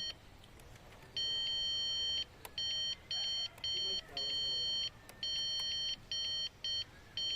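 Electronic circuit tester beeping as its probe is touched to fuse terminals one after another, each beep signalling that power is present. One beep of about a second, then a run of shorter beeps of uneven length.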